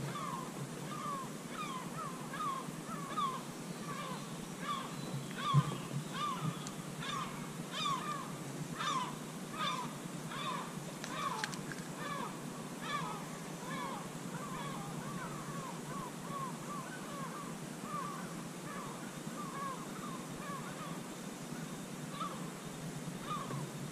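A bird calling over and over, short falling notes about two a second, over a quiet outdoor hiss. There is one low thump about five and a half seconds in, and a few sharp clicks a little later.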